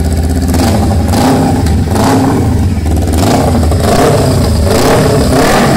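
Kawasaki Ninja 250's parallel-twin engine revved several times with its muffler removed, running loud and raw through the bare exhaust pipe between steady idle.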